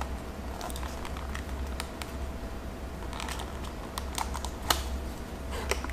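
A small cardboard box being handled and worked open by fingers: scattered light clicks and taps, with a few sharper ones about four to five seconds in.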